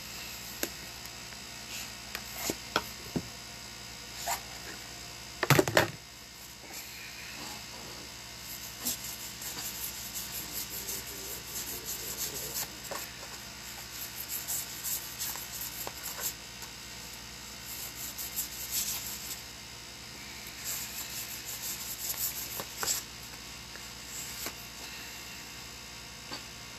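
A deck of oracle cards handled and shuffled by hand: a few clicks and one loud knock about five seconds in, then repeated runs of quick, crisp card flicks and rustles. A steady electrical hum runs underneath.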